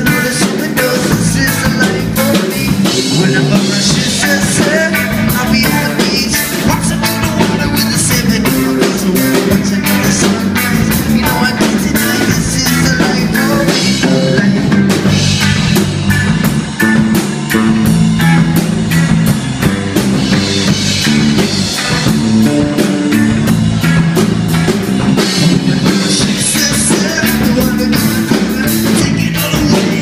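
Live band playing: amplified electric guitars over a drum kit keeping a steady beat.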